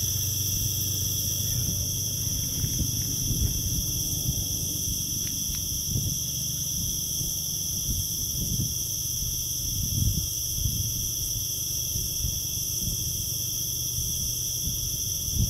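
Night insects, crickets or katydids, chorusing steadily in several even high-pitched bands. Beneath them run low, irregular thumps and rumbles, loudest about ten seconds in.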